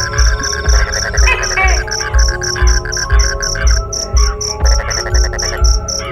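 Background music: a low beat about twice a second under a shifting melody, with a high, short chirp repeating about four times a second.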